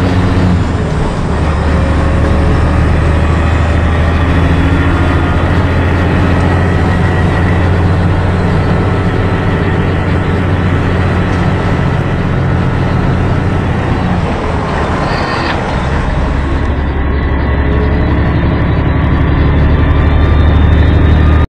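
Semi truck's diesel engine running steadily with road noise while driving in traffic, heard from inside the cab as a loud, low drone. A short hiss comes about fifteen seconds in.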